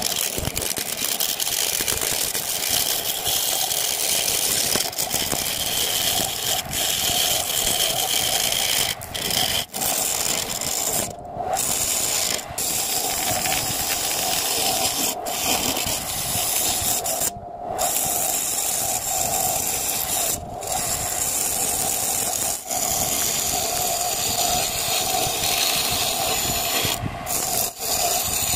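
Homemade wood lathe running while a hand-held turning tool cuts a spinning wood blank: a steady, rough scraping over the hum of the machine, with a few brief breaks.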